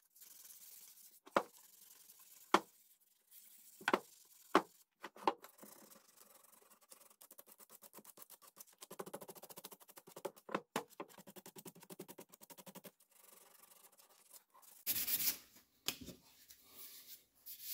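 Sandpaper rubbed by hand along a wooden axe handle: a rapid run of short rasping strokes, after a few sharp knocks. A louder rough burst comes near the end.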